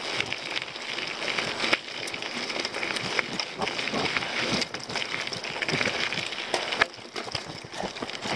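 Mountain bike being ridden quickly down a rough dirt and rock trail: a continuous rattle and crunch of tyres and frame over stones and roots, with many sharp knocks.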